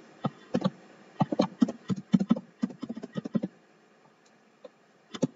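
Computer keyboard typing: a quick, uneven run of key clicks for about three seconds, then a pause and a few more keystrokes near the end.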